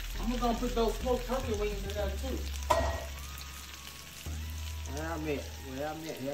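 Onions, garlic and smoked turkey wings sizzling in bacon grease in a cast iron pan as a wooden spoon stirs them, with one sharp knock of the spoon a little under halfway through. A wordless voice hums over it in two stretches.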